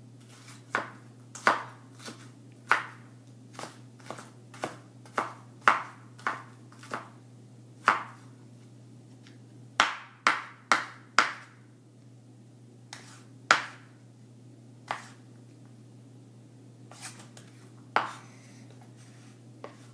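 Kitchen knife chopping onion on a wooden cutting board while dicing: irregular sharp knocks of the blade on the board, with a couple of short pauses.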